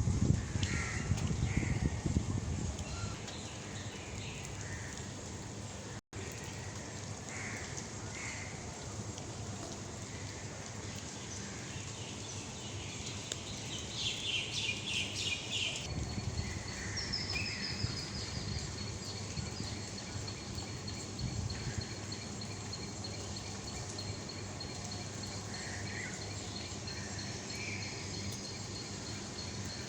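Several birds calling outdoors: short chirps scattered throughout, and a fast rattling trill about halfway through. A thin, steady high tone runs through the second half, and there is a low rumble in the first few seconds.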